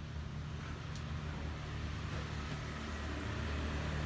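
Steady low mechanical hum, like a motor running, growing slightly louder toward the end, with a faint click about a second in.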